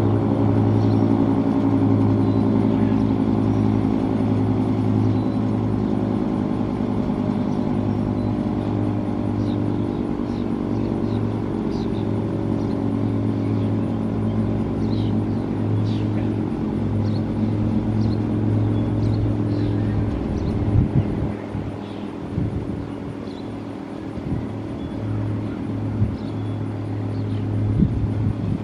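American Signal 3T22 rotating outdoor warning siren sounding its steady alert: a loud held chord of several pitches, wavering a little in level. A few short high chirps sound over it, and a few low thumps come in the last several seconds.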